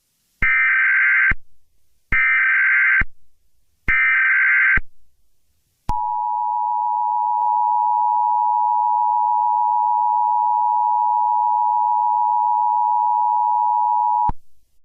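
Emergency Alert System tones: three short bursts of the buzzing SAME data header, each about a second long, then the steady two-tone EAS attention signal that sounds for about eight seconds and cuts off suddenly.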